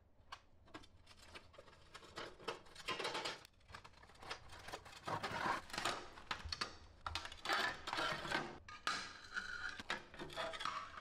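Loose glass panes and debris being handled inside an old enamelled steel cabinet with a glass door, opened by gloved hands: irregular clinks, scrapes and rattles of glass on metal, busiest about halfway through.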